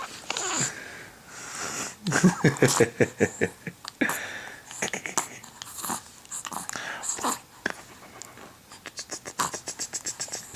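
A dog panting and sniffing in runs of quick, short breaths, about five or six a second.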